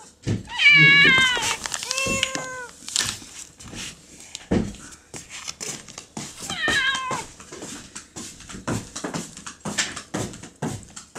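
Domestic cat meowing three times, the first call the loudest and the last near the middle, with short clicks and ticks scattered in between.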